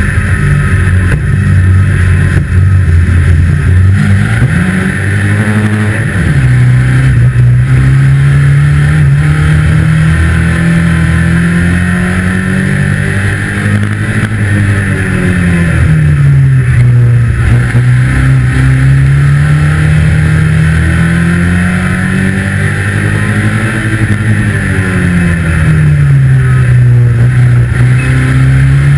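2-litre saloon stockcar engine heard from inside the cockpit, running hard with its pitch rising and falling in long swells about every ten seconds as it accelerates along the straights and eases off for the bends. A steady hiss runs underneath.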